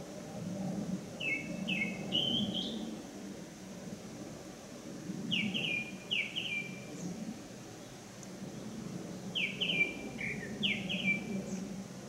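A small songbird singing three short phrases, each of three or four quick downslurred whistled notes, about four seconds apart. Under it runs the steady low rush of a mountain stream.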